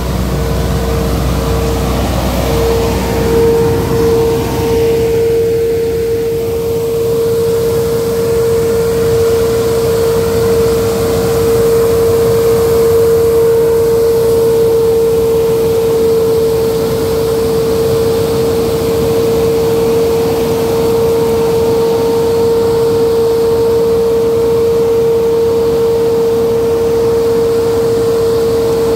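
Nut sweeper running, a constant whine held at one pitch over steady machine noise. A low rumble underneath fades out a few seconds in.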